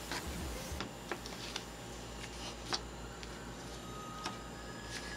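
Stickers being handled and set down on a hard surface: a handful of scattered light clicks and taps over a low hum.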